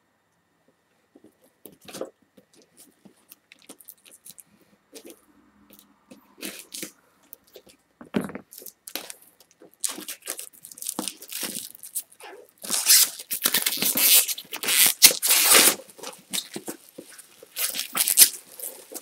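Cardboard product box being handled and opened: scattered taps and scrapes at first, then, from about ten seconds in, loud crinkling and tearing of the plastic wrapping and cardboard, loudest a few seconds later.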